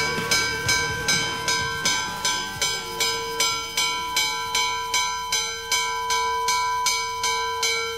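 Steam locomotive bell ringing steadily, about three strikes a second, each clang ringing on.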